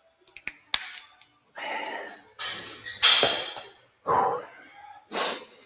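Two sharp clicks, then four loud breathy puffs about a second apart, the loudest about three seconds in: a person breathing hard between exercise sets, winded from push-ups.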